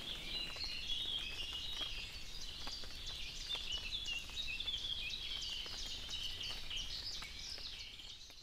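Many small birds chirping together, a dense run of short high calls, fading out near the end.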